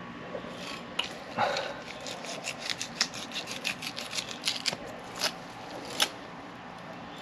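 Fillet knife cutting along a hogfish's back through its scales and skin: a quick run of short scratchy strokes, with a few louder ones, the sharpest near the end.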